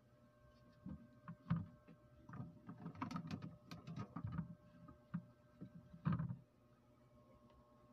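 Water sloshing and splashing in a mini washing machine's tub during the wash cycle, in irregular surges that stop about six seconds in, over a steady faint hum.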